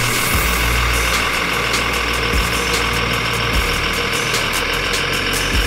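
Simulated diesel engine of a Komatsu HD405 model dump truck, played through its sound module and running steadily at idle, with the low rumble shifting a few times. Scattered light clicks sound over it.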